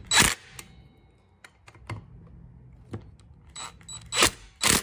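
Cordless power driver run in short bursts to tighten the clutch mounting bolts into a trimmer's flywheel: one burst near the start and two near the end, with light metal clicks between.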